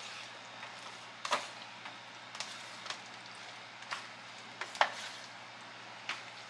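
A utensil stirring chicken pieces into a thick cream-of-chicken sauce, with irregular clacks against the dish, the loudest about five seconds in.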